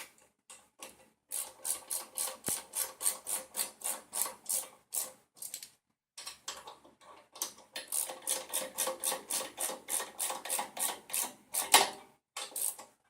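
Hand ratchet wrench clicking in quick, even runs of about four to five clicks a second as it runs down the 13 mm nuts on a Predator 212 engine's exhaust header pipe. There are two runs with a short pause between them, and one louder clank near the end.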